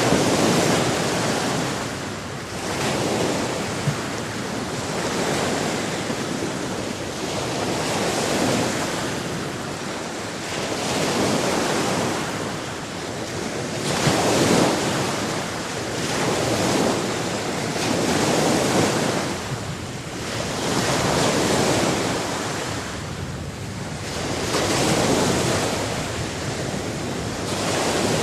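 Sea waves breaking and washing on a shore, a steady rushing that rises and falls every few seconds.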